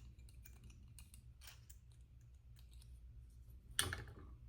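Faint clicks and light rustling of paper being handled and placed in a planner, with a louder rustle near the end.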